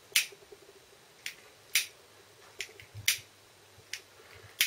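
A hand-held lighter being struck over and over: about seven sharp clicks at uneven intervals as it is tried again and again before it lights.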